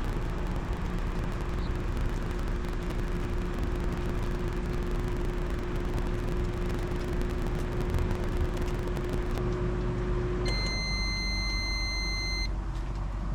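Microwave oven running with a steady hum and fan noise, which stops about ten seconds in, followed by one long high-pitched beep of about two seconds as the cooking cycle ends.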